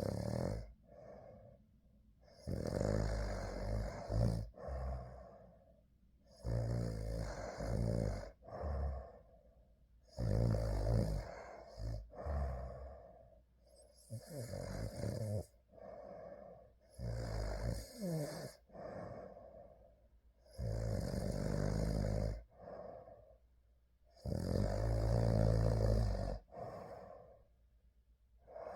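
A sleeping person snoring in a slow, regular rhythm: about seven snores, each around two seconds long, roughly one every four seconds, with quiet breathing between them.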